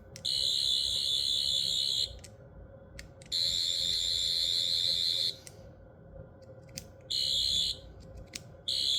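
Metal replica of the Twelfth Doctor's sonic screwdriver playing its electronic sound effect: a high, steady buzzing whine in four bursts. The first two last about two seconds each, then come two short ones.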